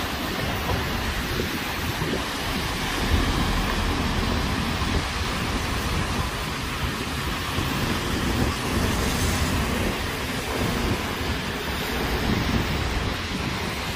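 Rain-wet city street ambience: a steady hiss of wet traffic, with wind rumbling unevenly on the phone's microphone.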